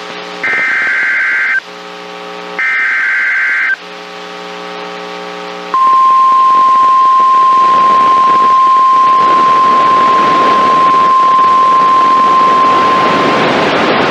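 Emergency Alert System SAME header on NOAA Weather Radio: two short warbling data bursts about a second apart with a low buzz between them, then the steady 1050 Hz weather radio warning alarm tone for about eight seconds over rising radio hiss. It marks the start of a new warning broadcast.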